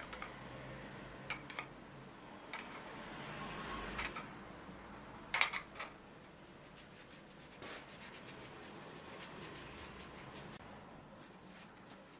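Melted butter being spread with a pastry brush over a thin sheet of rolled-out dough: soft, steady rubbing, with a few light clicks and knocks, the sharpest a little past the middle.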